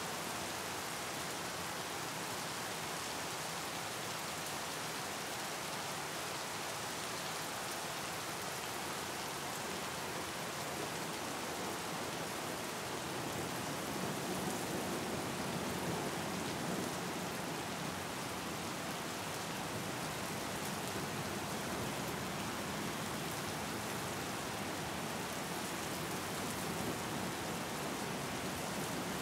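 Steady rain falling on open water, countless drops pattering on the surface in an even hiss that swells a little about halfway through.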